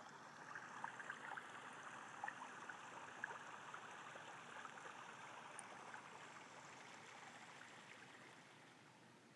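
Faint steady background hiss with light scattered crackles, fading down near the end.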